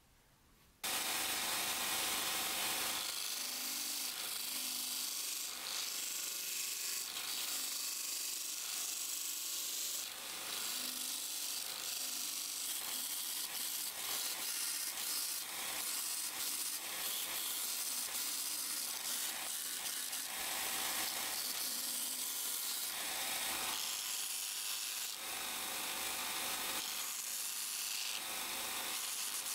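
Belt sander running with a wooden knife handle pressed against its abrasive belt: a steady grinding hiss of sanded wood that starts abruptly about a second in.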